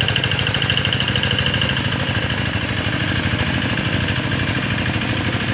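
Two-wheel hand tractor's engine running steadily while harrowing a muddy rice paddy, a rapid, even chugging. A high whine rides over it and fades out about two seconds in.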